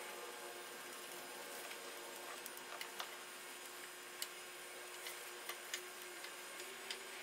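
Faint, scattered small clicks of a bolt and gloved fingers against metal as a bolt is started by hand into the variable valve timing solenoid, over a faint steady hum.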